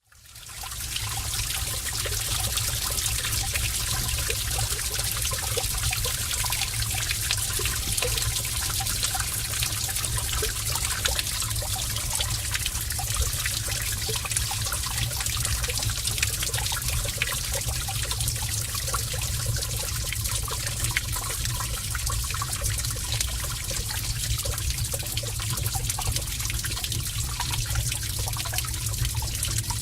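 Heavy stream of water running and splashing in a cave, a steady rushing with a deep rumble underneath, fading in over the first second.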